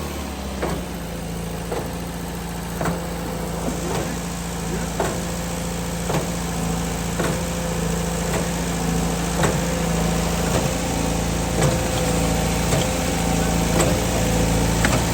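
Olin 545 concrete pump running steadily under its engine, with a sharp knock about once a second as the pump strokes while pumping concrete.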